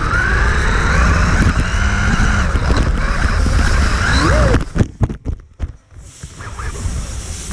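The Mini-T 2.0's 6,000 kV Dynamite brushless motor whining up and down with the throttle over a steady rumble of tyres and chassis, heard close from a camera on the truck. Just under five seconds in the sound drops away with a few sharp knocks as the truck hits the track wall, then the rumble picks up again.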